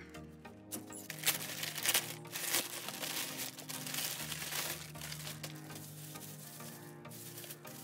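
Plastic crinkling as a black plastic mailer bag and bubble wrap are handled and pulled open, crackling in bursts over the first few seconds, with background music of steady held notes throughout.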